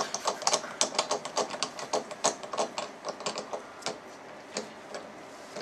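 Quick, irregular light clicks and taps of a short steel bridge tube and its jig being handled and seated in a milling-machine vise. The clicks come several a second and thin out near the end.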